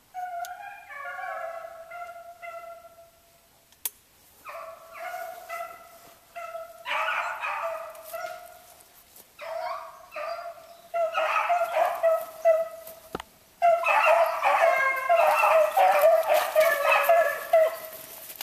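Beagles baying while running a rabbit: bursts of bawling hound voices that swell about two-thirds of the way in into a near-continuous chorus of several hounds giving tongue together.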